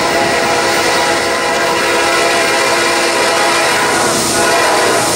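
Norfolk Southern GE D9-44CW diesel locomotive's air horn held in one long, steady chord as the freight train approaches, over the rumble of the train.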